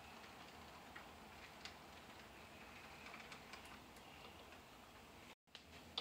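HO scale model steam train rolling slowly along the track: faint, irregular clicks of its wheels over the rail joints, with a faint high motor hum. The sound drops out for a moment near the end.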